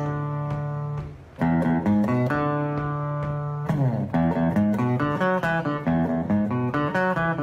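Music played on a plucked guitar: held notes at first, a short break about a second in, then quicker runs of notes in the second half.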